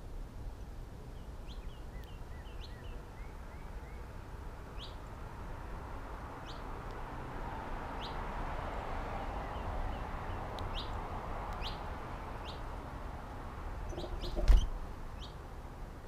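Small birds at a feeder calling in short, sharp chirps, roughly one a second, with fainter chirping in the first few seconds. A soft rushing noise swells and fades in the middle, and a single sharp knock near the end is the loudest sound.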